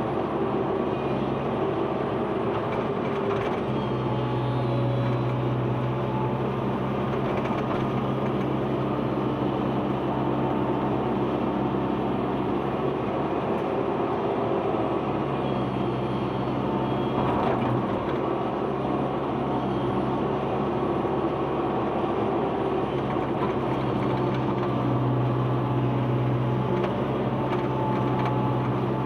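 Excavator's diesel engine running steadily under working load, its pitch shifting slightly now and then, with a few short knocks.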